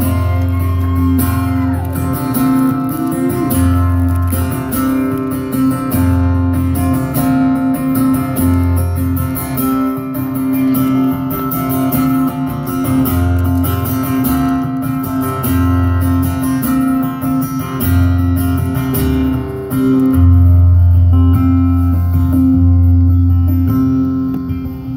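Acoustic guitar strummed in a steady rhythm, its low bass notes coming and going, as the instrumental intro to a song before the singing starts.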